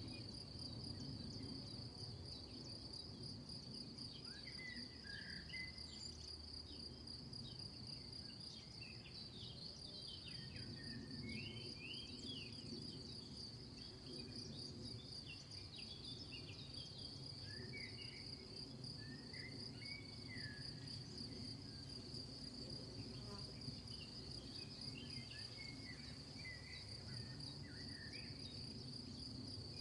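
Crickets trilling in a steady, high, finely pulsing chorus, with short chirps scattered through it over a low background rumble.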